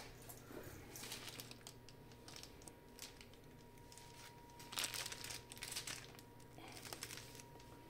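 Faint handling noises: hands shifting and rubbing against the casing of a diathermy machine on a workbench, with scattered small clicks and knocks. The loudest rustle comes a little before the middle.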